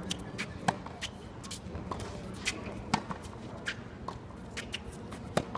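Tennis rally on a hard court: racket strokes on the ball, three loud near-court hits about two and a half seconds apart, with fainter hits and bounces between, over crowd chatter.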